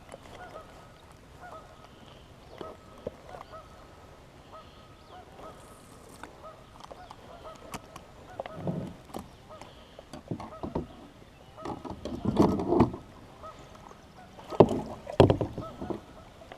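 Geese honking out on the water, repeated calls coming faintly and steadily. In the second half a few louder, sudden thumps and clatters sound close by, the loudest about twelve and fifteen seconds in.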